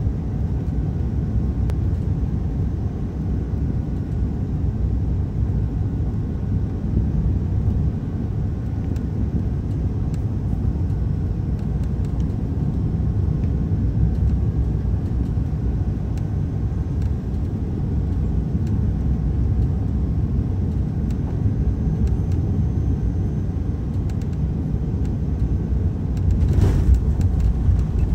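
Airbus A380 cabin noise heard from a seat over the wing on final approach: a steady low rumble of airflow and engines. Near the end it grows louder, with a few knocks, as the wheels touch down on the runway.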